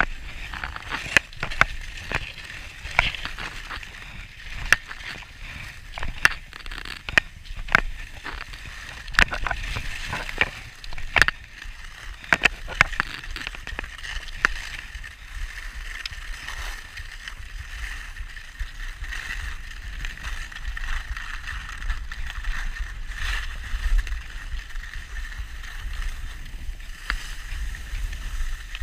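Skis scraping and hissing over packed snow on a downhill run, with wind rumbling on the camera microphone. Frequent sharp clicks and knocks, thickest in the first half.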